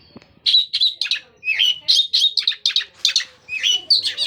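Long-tailed shrike (cendet) singing a rapid string of short, sharp chirps, several a second.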